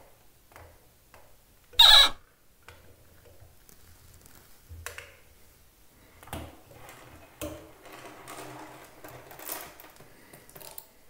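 Faint scattered clicks and knocks of a plastic toy doll being handled against chrome shower fittings, with one brief, much louder sharp sound about two seconds in.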